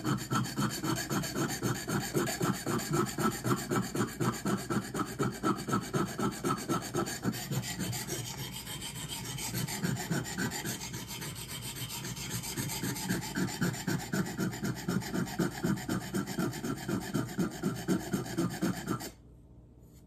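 Steel knife blade being ground on a 400-grit super vitrified diamond water stone: quick back-and-forth rasping strokes, about three a second, softer for a few seconds in the middle, stopping suddenly about a second before the end. This is tip repair, grinding the spine down toward a bent tip to bring back a flat profile.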